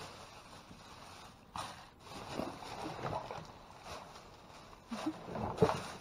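Rummaging through packages and boxes in a dumpster: scattered rustles and knocks, the loudest a sharp knock about five and a half seconds in.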